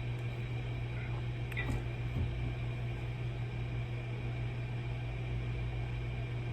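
Steady low electrical hum under an even hiss, with a faint click about one and a half seconds in.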